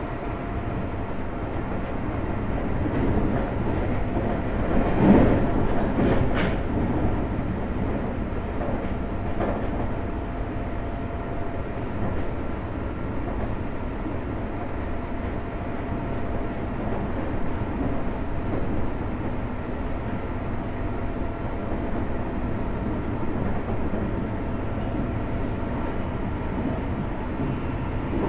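JR Hokkaido 733 series 3000 subseries electric train running at speed between stations, heard from aboard motor car MoHa 733-3109: a steady rumble of wheels on rail with faint steady whining tones. It grows louder for a couple of seconds about five seconds in.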